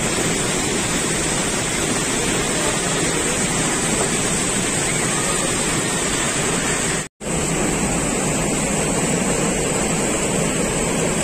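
Loud, steady rush of white water pouring through a concrete weir spillway, broken by a split-second gap about seven seconds in.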